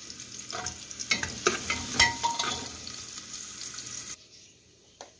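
Chopped onion and garlic sizzling as they fry in an aluminium pot, with a slotted spoon stirring and scraping against the pot. The sizzle cuts off suddenly about four seconds in.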